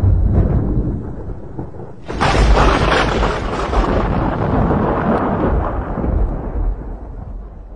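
Thunder: a low rumble, then a sharp thunderclap about two seconds in that rolls away and fades over several seconds.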